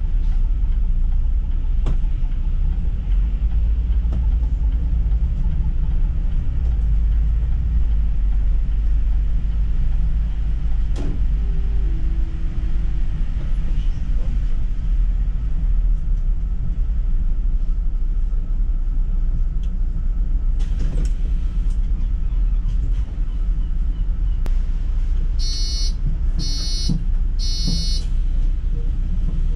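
City bus running on the move, heard from inside: a steady low engine and road rumble. Three short electronic beeps sound in a row about a second apart near the end.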